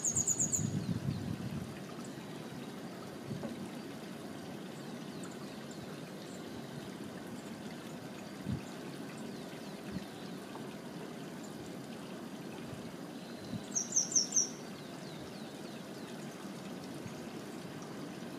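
Water trickling and splashing over rocks, a steady hiss. A grey wagtail gives quick runs of four or five sharp, very high call notes, once at the start and again about fourteen seconds in. There is a brief low rumble in the first second or so.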